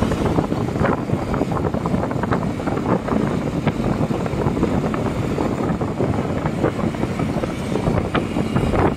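Wind rushing over the microphone of a vehicle moving at road speed, over a steady drone of engine and tyre noise.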